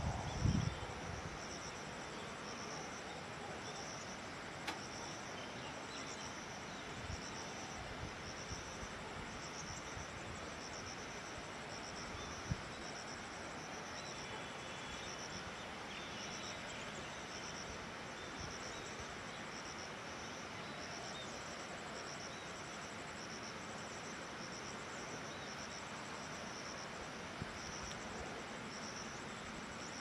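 Insects chirping in a steady, high-pitched pulse, roughly one chirp a second, over a constant background hiss.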